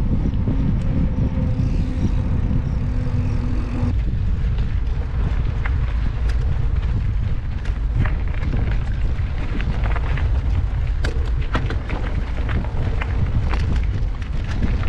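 Wind rumbling on the microphone of a camera riding along on a mountain bike, with a steady hum that stops about four seconds in. After that come frequent clicks and rattles of the bike jolting over rough single track.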